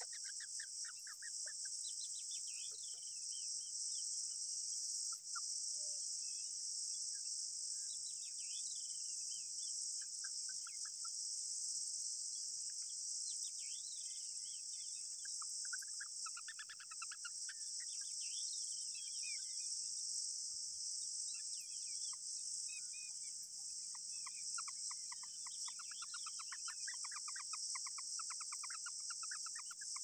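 Steady high-pitched insect drone (cicadas or crickets) throughout, with scattered chirps and trills of rufous treepie nestlings begging for food, turning into a long run of quick repeated calls near the end.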